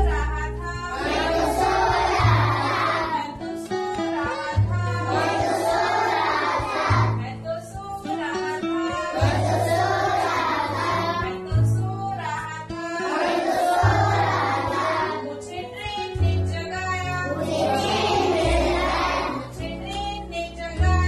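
A group of children singing a Hindi action song together in repeated phrases, over an instrumental backing with a steady low bass line.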